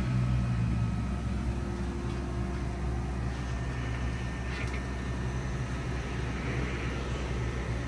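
Steady low machine hum with a light hiss, a little louder in the first second, and a couple of faint clicks of handling.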